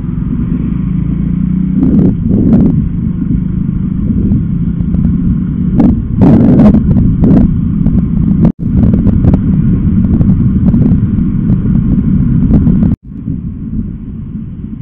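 Wind buffeting a motorcycle-mounted microphone over the engine and road noise of a motorcycle riding on a highway. The sound cuts out for an instant twice, and is quieter after the second break.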